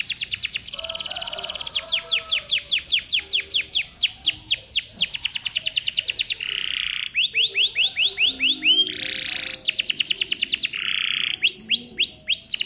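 Domestic canary singing a long, varied song: long runs of fast repeated down-slurred notes (rolls), broken by a few short buzzy phrases and a run of higher clipped whistles near the end.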